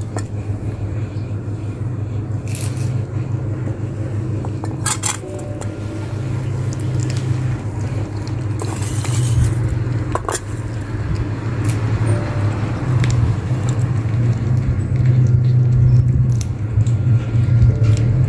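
Cats chewing cooked chicken wings, with a few sharp clicks of bone on the tiled floor, over a steady low rumble.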